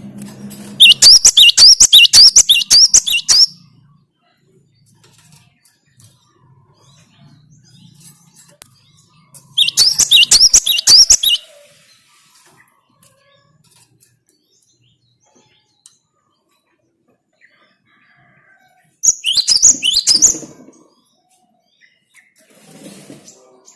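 Cinereous tit (gelatik batu) singing: three bursts of rapid, high repeated chirping notes, each lasting one to three seconds, with pauses between them.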